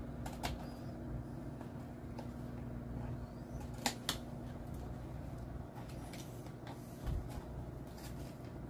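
Kitchen shears snipping open a carton of cream: a few sharp clicks and snips, the loudest pair about four seconds in, over a steady low hum.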